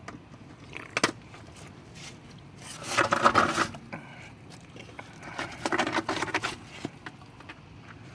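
Hand tools and metal brake parts clinking, with two longer rough scraping sounds a few seconds apart.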